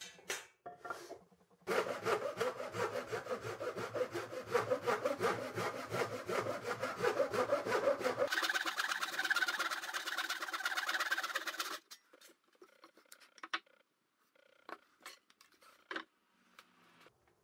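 Japanese hand saw cutting through a pine board with rapid back-and-forth strokes for about ten seconds. Then a few light knocks of wood being handled.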